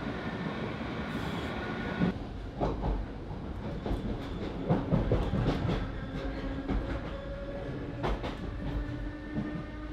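Running noise inside a moving DART electric commuter train: a steady rumble with scattered clicks and knocks from the wheels on the track. A faint steady hum joins in during the second half.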